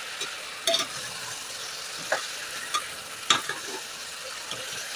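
Chopped tomatoes and onions sizzling in oil in a pressure cooker while a metal spoon stirs them, scraping and knocking against the pot a few times over a steady sizzle.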